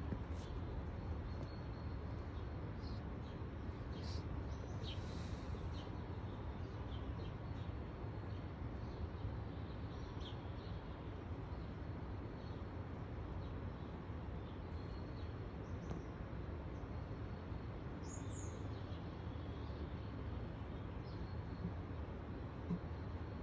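Steady low background rumble with faint, scattered high chirps of small birds, most of them in the first six seconds and a few more later on.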